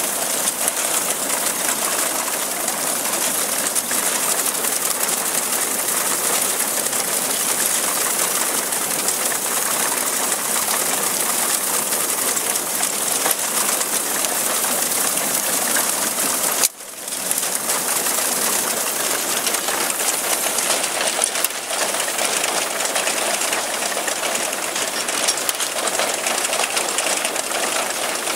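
Reaper-binder running while cutting and binding a cereal crop: a steady, busy mechanical clatter of the reciprocating cutter knife, reel, chains and linkages. The sound breaks off sharply for a moment about 17 seconds in, then resumes.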